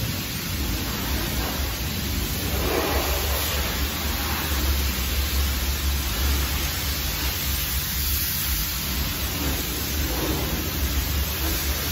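Self-service car wash high-pressure wand spraying water onto a car: a steady hiss over a low steady hum.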